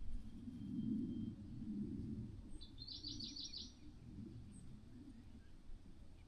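A bird chirping a quick run of about six high notes, about two and a half seconds in, over a steady low rumbling background noise.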